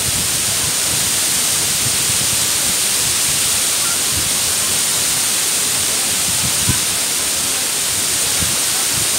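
Mumlava waterfall pouring over rock ledges into its pool: a steady rush of falling water.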